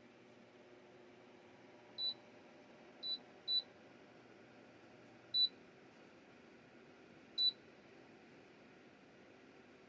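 Electric space heater beeping five times, short high single beeps at uneven intervals as its buttons are pressed, over the faint steady hum of its fan.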